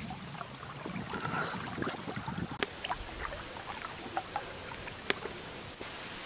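Small waves lapping and splashing against a canoe hull, with a few sharp knocks; near the end this gives way to a steady hiss.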